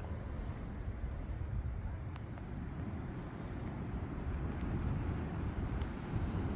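Steady low rumbling noise outdoors, even and without breaks, with a few faint, very high, short sounds over it.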